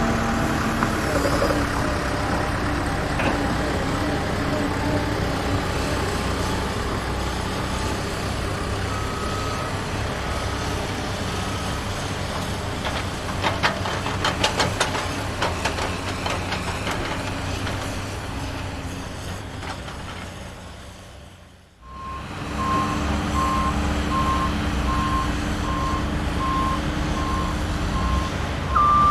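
Steady engine noise of a truck, fading out about three-quarters of the way through and then coming back, joined by a reversing alarm giving a regular series of short beeps at one pitch, about one and a half a second.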